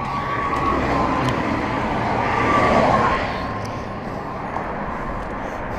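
Highway traffic passing on the bridge just beyond the barrier, very loud: a steady rush of tyres and engines that swells as a vehicle goes by about three seconds in, then eases. A steady high whine runs under it and fades about three seconds in.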